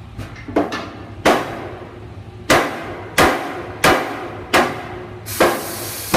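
Hammer blows on a metal frame, about eight strikes spaced roughly two-thirds of a second apart, each with a short metallic ring: the frame being driven into its tight-fitting seat.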